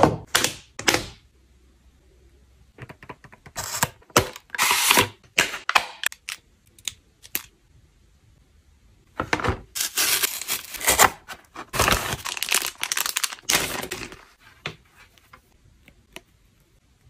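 Close-up handling of small plastic products: clicks and snaps as a plastic lunch box lid is pressed shut at the start, then scattered clicks and bursts of scratchy rustling, most dense in the middle, separated by short quiet gaps.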